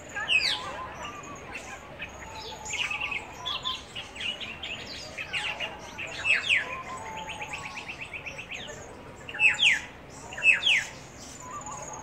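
Several birds chirping and calling: sharp, quick, downward-sweeping chirps scattered throughout, a fast run of repeated notes about seven to eight seconds in, and the loudest chirps near the end.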